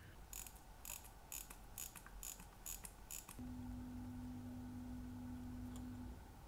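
About seven sharp clicks from a small mechanism, roughly two a second, followed by a steady low hum that drops out briefly near the end.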